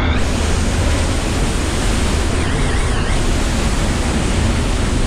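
Loud, steady roar of rushing whitewater from waterfalls and rapids close to the microphone.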